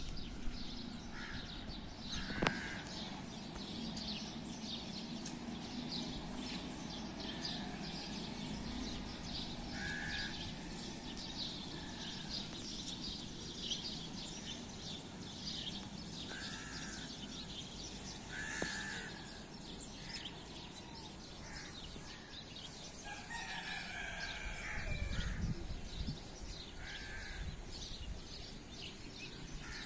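Crows cawing every few seconds over a constant chatter of smaller birds chirping, with a steady low hum beneath.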